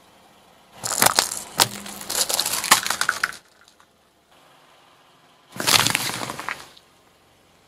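Car tyre rolling over and crushing objects on asphalt: a long run of crackling and sharp cracks about a second in, lasting a couple of seconds, as a plastic lollipop toy breaks, then a shorter crunch a few seconds later as an apple is squashed.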